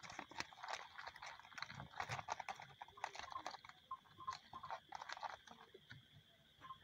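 Irregular small wet clicks and crackles of live fish shifting and flapping against each other and a plastic basket, over a steady high drone.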